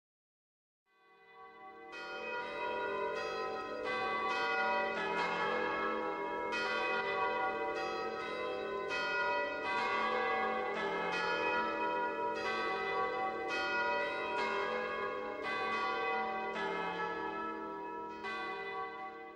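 Church bells pealing: several bells struck in turn, their ringing tones overlapping. The peal fades in about a second in and dies away near the end.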